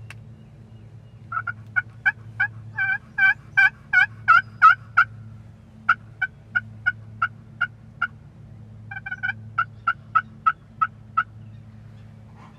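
Turkey yelping: three runs of evenly spaced two-toned yelps, about three notes a second, with short pauses between the runs, over a faint low hum.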